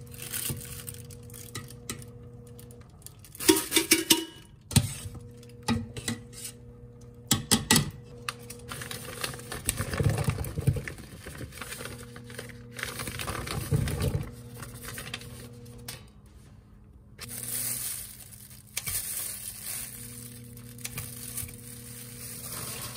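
Kitchen cooking sounds: utensils clinking and knocking against pans and dishes, with stirring and some sizzling in a pan over a steady low hum.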